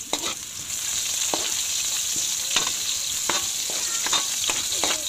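Sliced onions and garlic sizzling in hot oil in a pan, with a metal spoon scraping and clinking against the pan every second or so as they are stirred.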